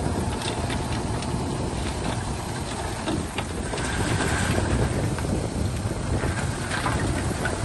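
Bulldozer's diesel engine running under load, a steady low rumble, with scattered clanks and clicks from its tracks and a brief faint squeal about four seconds in.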